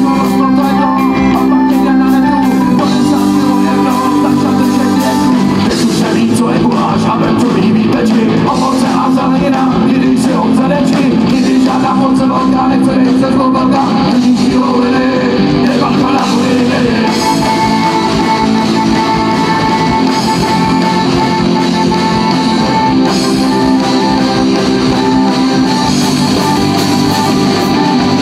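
Live rock band playing loudly with accordion, electric guitars, bass guitar and drums.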